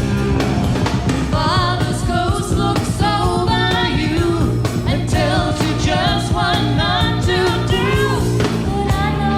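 Live pop-rock band with a singer's voice carrying the melody over bass and drums, starting about a second and a half in.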